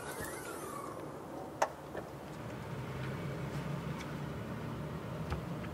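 Low, steady hum of road traffic in street ambience, growing slightly louder partway through, with a single sharp click about a second and a half in.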